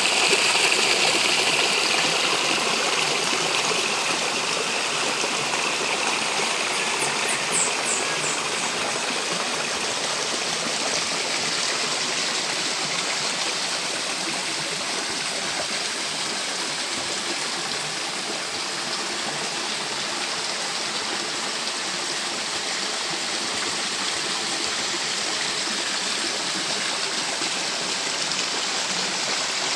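Flowing stream water rushing steadily. A few quick high chirps come about seven seconds in.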